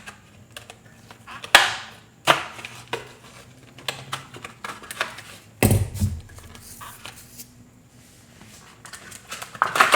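Tool packaging being opened and handled to get out a pair of multi-function pliers: scattered sharp clicks and rustles, with a heavier thump a little past halfway.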